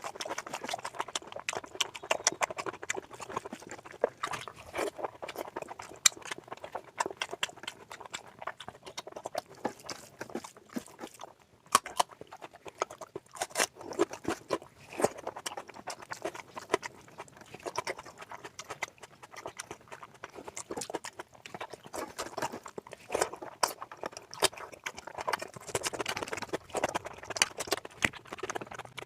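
Close-miked eating of oily mutton fat curry with rice: continuous chewing with a dense run of wet smacking and clicking mouth sounds.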